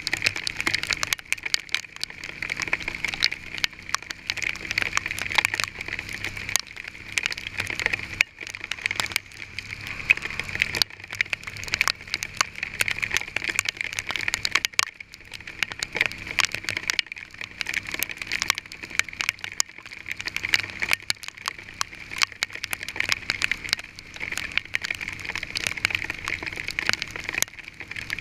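Hail pelting a vehicle: a dense, irregular rattle of many small hard hits that keeps up throughout.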